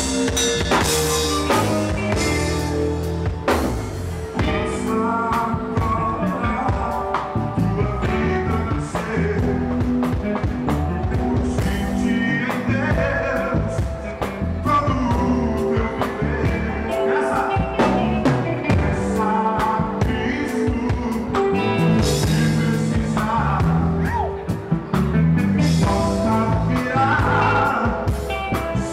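A band playing a song with drum kit, a melodic lead line and a singing voice, the drums keeping a steady beat.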